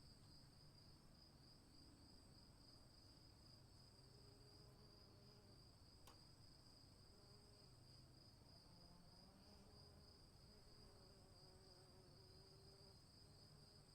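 Faint, steady high-pitched chorus of insects trilling over a low rumble of outdoor ambience, with one brief click about six seconds in.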